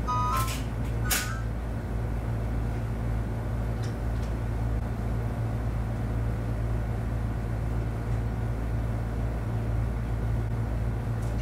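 Steady low hum of a hotel room's ventilation, with a couple of sharp clicks and a brief ringing tone in the first second or so.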